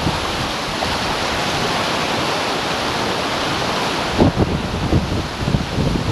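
Sea water rushing and hissing along a racing yacht's hull at speed. About four seconds in, wind starts buffeting the microphone in gusts.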